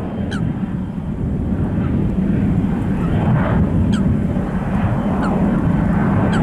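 Low, steady rumble of a jet airliner's engines at an airport, mixed with wind buffeting the microphone. Short, high falling chirps recur about once a second over it.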